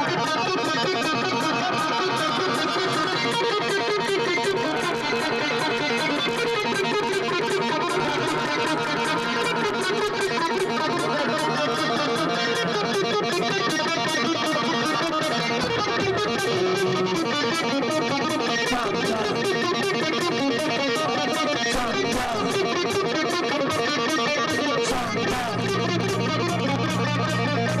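Live rock band playing, with distorted electric guitar over bass and fast, busy drums. The low notes get heavier near the end.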